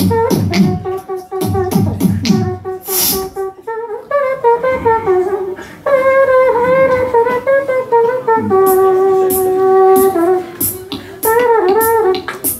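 Live human beatboxing by two performers. It opens with quick kick-and-snare style mouth percussion for the first few seconds, then turns to a long pitched vocal line that bends up and down and then holds one note, with percussive beats coming back near the end.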